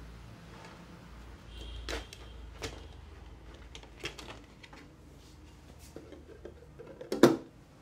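Scattered clicks and knocks of something being handled, a handful spread over several seconds, the loudest a sharp double knock about seven seconds in.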